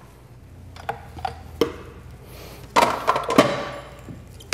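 Stainless-steel mixing bowl being handled on a stand mixer and lifted off it: a few light clicks, then a louder metallic clatter with ringing about three seconds in.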